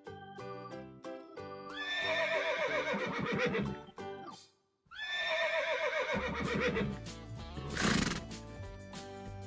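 A horse whinnying twice, each call starting high and falling away with a wavering pitch, over light background music. A short, loud noisy burst comes near the end.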